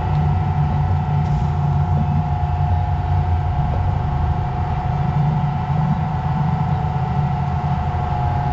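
Fishing boat's inboard engine running steadily under way: a loud low rumble with a steady whine above it.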